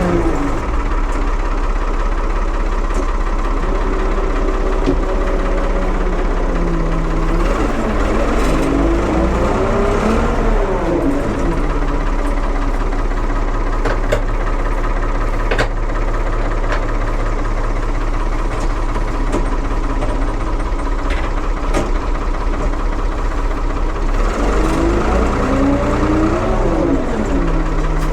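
1975 Ford 550 backhoe's engine running steadily, revved up and back down twice, once about a third of the way in and again near the end, while the transmission sits in neutral.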